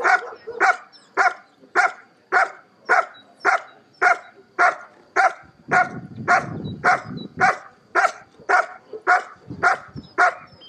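German shepherd barking steadily and rhythmically, about two barks a second.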